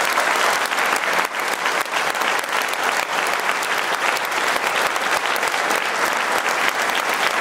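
An audience applauding steadily, many hands clapping together, with the people on stage clapping along.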